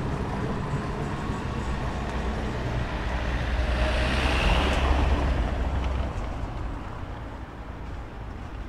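A vehicle passing close by: a deep rumble with rushing noise that builds to its loudest about four to five seconds in, then fades away.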